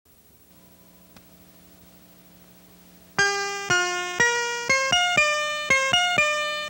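Opening theme music: a faint steady hum for about three seconds, then a melody of single sharply struck notes that ring and decay, about two a second.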